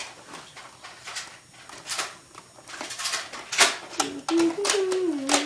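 Scattered sharp clicks and snaps from Nerf blasters, with a person humming a wavering tune from about four seconds in.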